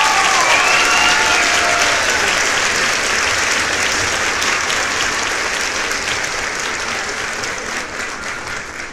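Crowd applause, many hands clapping densely and slowly fading towards the end. A few held musical notes die away in the first second or so.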